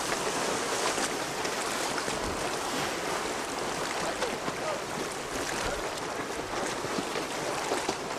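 Steady wind and sea noise: a constant rushing hiss of wind and breaking waves, with wind buffeting the camcorder microphone.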